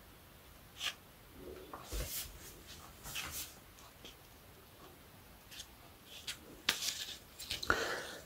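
Faint scattered rustles and light clicks of a plastic ostomy skin-barrier wafer being handled and pressed onto the skin, a little busier near the end.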